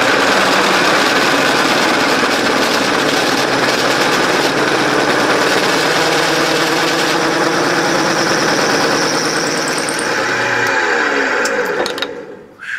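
Drill press running with a solid carbide bit cutting into a cast-iron cylinder head: a loud, steady motor hum over the cutting noise. Near the end the motor is switched off and winds down, falling in pitch until it stops.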